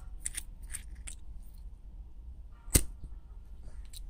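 Small metallic clicks and ticks as a mini keychain kerosene lighter is handled and its screw cap taken off. Just under three seconds in comes one sharp, much louder click as the lighter is lit.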